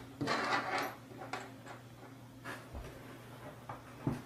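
Handling noise as hands set down and let go of an assembled acrylic robot arm on a tabletop: a brief brushing rustle in the first second, then a few faint light clicks and taps, the last one near the end.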